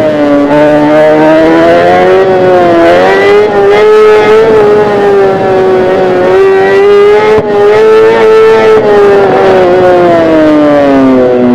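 Kawasaki ZX-10R's inline-four engine running hard at high revs, its pitch rising and falling as the throttle is worked. There is a brief break about seven seconds in, and the revs fall away near the end.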